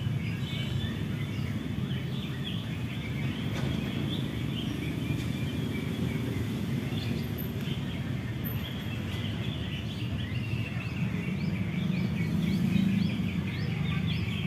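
Oriental magpie-robin (kacer) singing a fast run of short chirps and whistles, turning about halfway through into a string of quick rising notes, over a steady low rumble of background noise.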